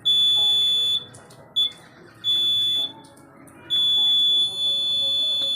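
Active piezo buzzer of a BC547-transistor laser security alarm sounding a steady high-pitched tone in four bursts of uneven length: about a second, a brief blip, about half a second, then a long one near the end. The buzzer sounds each time the laser beam on the light sensor (LDR) is blocked, and stops when the beam is restored.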